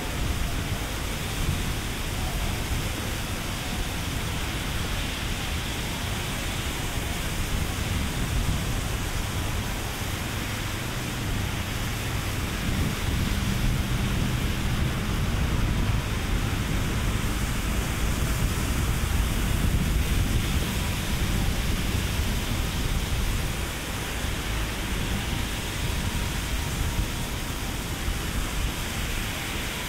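Heavy rainstorm: a steady hiss of rain pouring down, swelling louder for about ten seconds in the middle.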